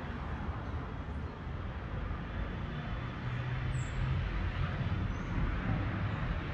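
Street ambience: a steady low rumble of road traffic, with a couple of faint short high chirps.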